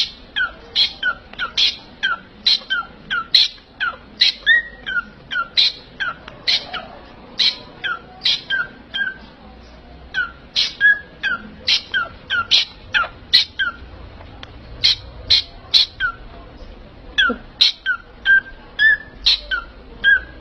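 A parrot giving short, sharp calls over and over, about two a second, with a brief pause about nine seconds in.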